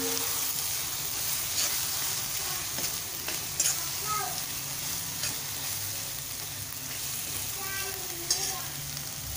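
Chopped onion and tomato frying in oil in a steel kadai, sizzling steadily while stirred and scraped with a steel spoon. The spoon clicks against the pan a few times.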